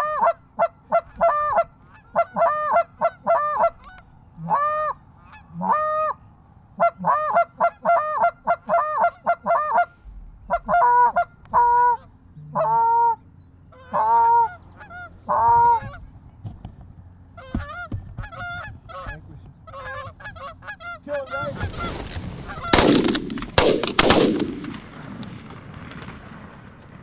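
Canada goose honking: fast runs of loud, close two-note honks through the first half, thinning to fainter scattered honks. About three-quarters of the way in, a couple of seconds of loud rushing noise with a few sharp cracks.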